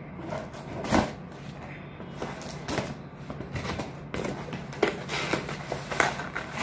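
Scissors cutting the packing tape on a cardboard box, with a sharp snip about a second in, then the box's flaps being pulled open with scrapes, rustles and a few sharp cardboard clicks.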